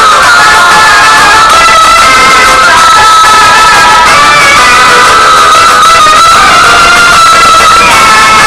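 Loud background music with a long held melodic line that wavers gently in pitch.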